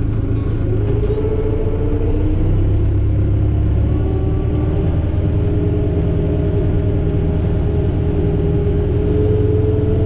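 ArmaTrac 1104 Lux tractor's engine running steadily under load while pulling an inter-row cultivator, heard from inside the cab, with a deep rumble and a steady whine whose pitch creeps up a little.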